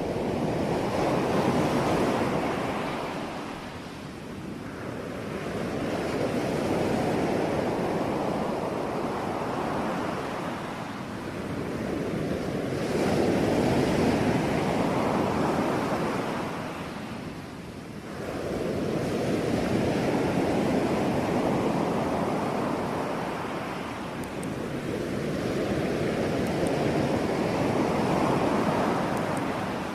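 Sea waves breaking on a shore, each wash of surf swelling up and fading away, about five in half a minute.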